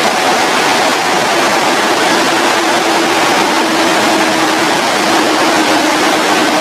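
Water discharging through a concrete dam's gates and falling down the dam face: a loud, steady rush. A faint steady low hum sits underneath from about a second and a half in.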